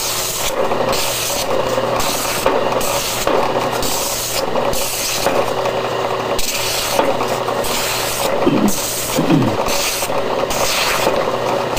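Pneumatic drum sander running with a steady hum while a Baltic birch plywood boomerang is worked against its 180-grit sleeve. The scratchy sanding rasp swells and fades with each pass, about once or twice a second.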